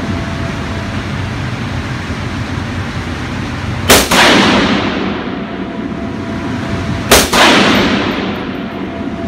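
Two rifle shots from a .308 rifle about three seconds apart, each a sharp crack followed by a long echoing tail off the walls of an indoor range, over steady background noise.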